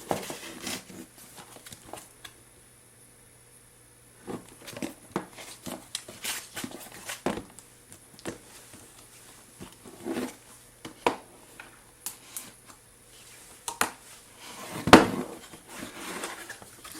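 Cardboard packaging being handled and opened by hand: scattered taps, clicks and rustles, with a louder knock about three-quarters of the way through.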